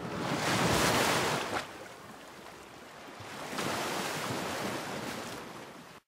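Ocean surf washing in: two swells of rushing wave noise, the first about a second in and the second from about three and a half seconds. It cuts off abruptly just before the end.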